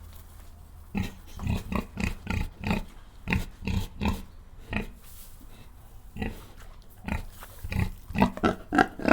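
Pig grunting: many short grunts in quick runs, with a lull in the middle.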